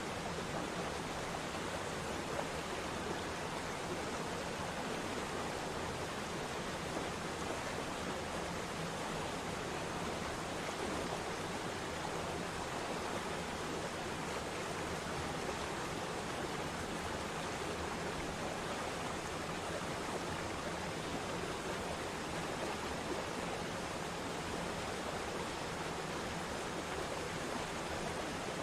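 Waterfall's steady, unbroken rush of falling water.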